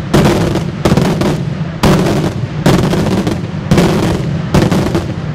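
Daytime aerial fireworks shells bursting overhead in a rapid series: six loud bangs about a second apart, each followed by a long echoing tail.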